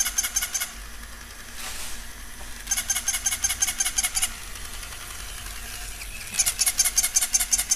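Battery-operated plush toy mouse giving off electronic squeaks: three bursts of fast, high chirps at about ten a second, each burst lasting a second or two.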